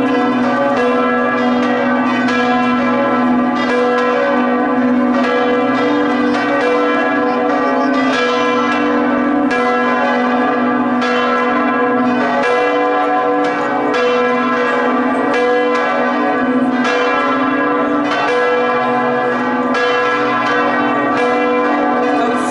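Bells of Prato Cathedral (Duomo di Santo Stefano) ringing a festive full peal, the 'plenum': several large swinging bells striking continuously in overlapping strokes, roughly one a second, over a steady low hum from the bells.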